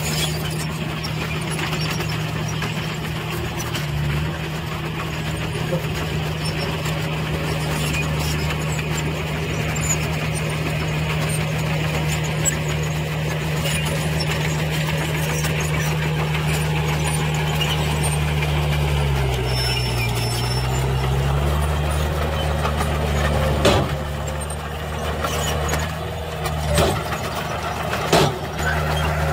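Heavy diesel engines of a dump truck and a bulldozer running steadily. The engine note dips in pitch briefly about two-thirds of the way through, and a few sharp knocks come near the end.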